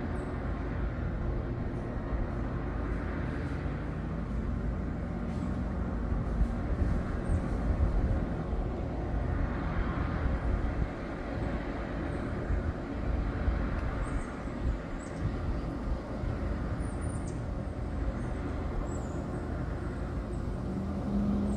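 Continuous low engine rumble with a faint hum that slides up and down in pitch, over a steady outdoor rush. A few short high chirps come in the second half.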